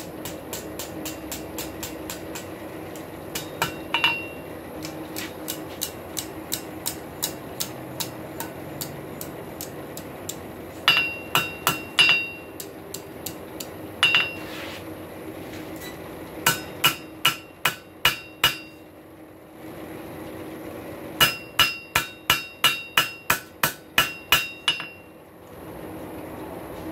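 Blacksmith's hammer striking a hot rail spike on a steel anvil, bending it into a hook. A run of light taps gives way to groups of harder, quick blows, about three a second, many of them ringing off the anvil.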